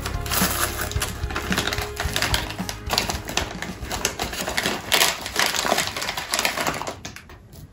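Plastic candy bag crinkling and crackling as it is torn open and handled, in a rapid run of sharp crackles that dies away near the end.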